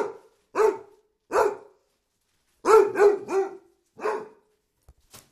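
Basset hound barking: seven short barks, with a quick run of three in the middle.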